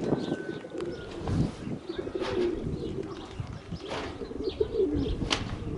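Domestic pigeons cooing repeatedly, over a low rumble of wind on the microphone, with a few sharp clicks.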